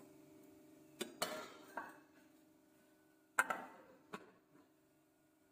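A steel spoon knocks and scrapes against a nonstick pan a few times as the curry is stirred. Then a metal lid is set down on the pan with a ringing clank about three and a half seconds in, followed by a smaller knock.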